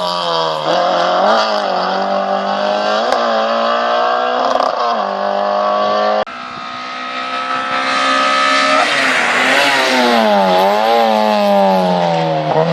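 Race car engine driven hard on a hill-climb run, its pitch climbing and dropping again and again through gear changes and throttle lifts. About six seconds in, the sound drops off sharply, then builds back up.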